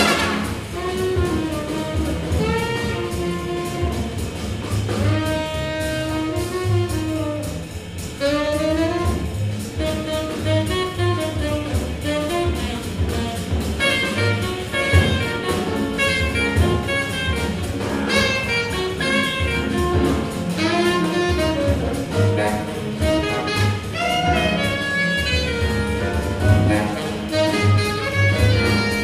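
Saxophone playing a jazz solo line with bends and runs, backed by a big-band rhythm section of drums, double bass and piano.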